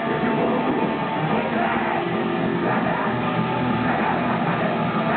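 Live metal band playing at full volume, electric guitar to the fore, steady and unbroken.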